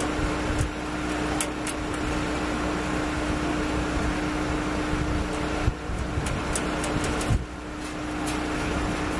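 Steady background noise with a constant low hum, broken by a few faint ticks and two short knocks later on.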